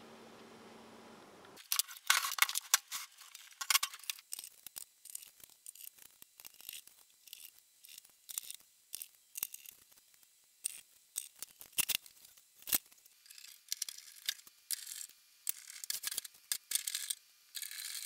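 Scattered clicks, taps and light scrapes of screws being handled and of a metal amplifier case being reassembled. Near the end a screwdriver turns a screw into the sheet-metal cover.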